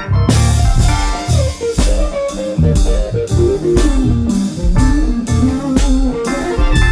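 A band playing an instrumental passage: electric guitars and bass guitar over drums and keyboard, with a steady beat and a melody line that slides downward in pitch.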